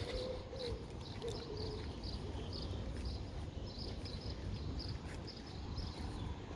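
Small birds chirping repeatedly, short high chirps at an uneven pace, with a low hooting coo twice in the first two seconds, over a steady low rumble.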